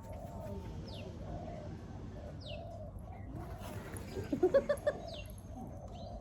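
Birds calling: a low call repeating about every second, a few short high chirps, and about four seconds in a quick run of four louder calls.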